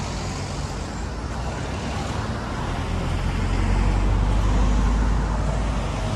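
Road traffic passing close by: cars, a van and a truck going by with engine and tyre noise, swelling as a vehicle passes about four to five seconds in.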